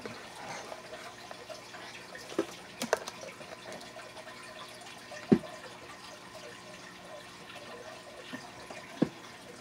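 Quiet room with a few scattered small clicks and knocks, five or so in all, the loudest about halfway through.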